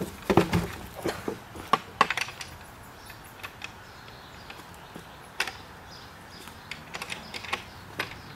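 Scattered light knocks and clicks, thickest in the first two seconds or so, with a few more near the end.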